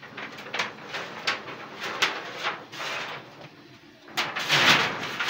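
Corrugated metal roofing sheet scraping and rattling as it is lifted off the wire mesh of a charcoal fish-drying grill: a string of short scrapes, then a louder, longer rasp about four seconds in.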